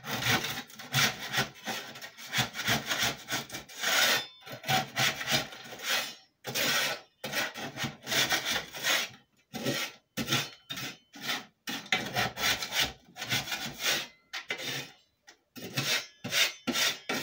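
A metal scraper scraping and breaking up freeze-dried food on a stainless steel tray: a long run of quick, rasping strokes with short breaks between them.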